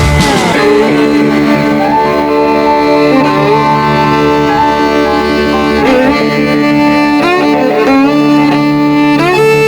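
Background music led by a bowed fiddle playing long, sliding notes over a steady accompaniment.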